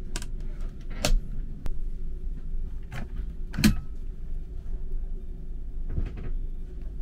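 Plastic cabinet door and hinged washbasin cover in a sleeper-train compartment being shut and lifted open: several sharp clicks and knocks, the loudest a little past halfway. Under them runs the train's steady low rumble.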